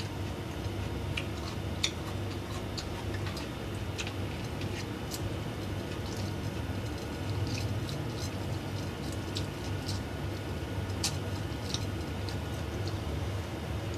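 A person eating fried noodles with chopsticks: scattered faint clicks and quiet chewing over a steady low hum.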